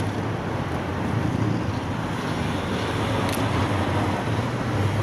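Steady city road-traffic rumble with wind noise on the microphone, and one sharp click about three seconds in.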